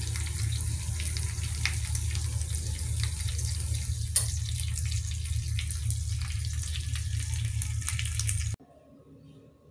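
Food cooking on a gas stove: a steady watery hiss with scattered small pops over a steady low hum. It cuts off suddenly near the end.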